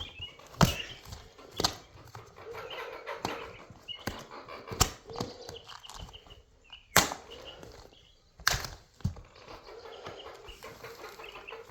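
Scattered sharp clicks and light knocks, about one to two seconds apart, from small hand tools and parts being handled while spare set screws are got out, with faint chirping in the background.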